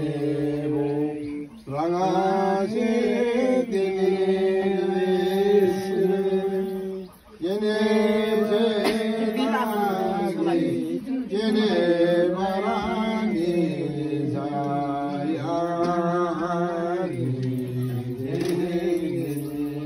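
A voice chanting in long, drawn-out held notes, in phrases broken by short pauses about a second and a half in and again at about seven seconds.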